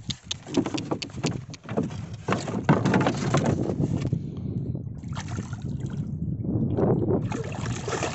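Water splashing and sloshing against the side of a small wooden boat. A quick run of knocks and clatter in the first half comes from gear being handled at the gunwale.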